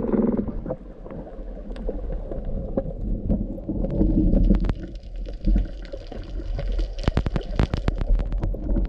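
Underwater ambience: a low, muffled rumble and gurgle of moving seawater, with a quick run of sharp clicks about seven seconds in.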